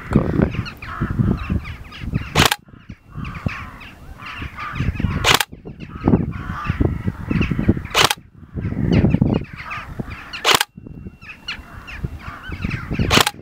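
Modified Tokyo Marui SCAR-H electric airsoft rifle firing five single shots through a chronograph, each a sharp snap, roughly two and a half to three seconds apart. Wind rumbles on the microphone between the shots.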